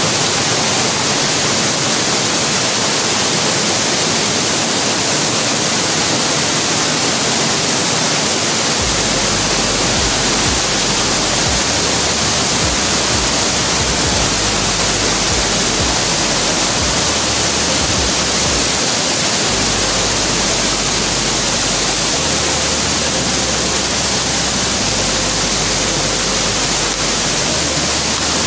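Elephant Falls waterfall rushing close by: a loud, steady hiss of falling white water.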